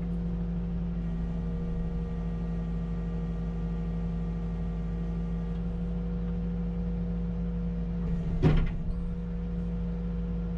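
Diesel engine of a CAT 308 excavator running steadily at a constant speed, heard from the cab. About eight and a half seconds in, a brief, louder sound with a sliding pitch cuts across it.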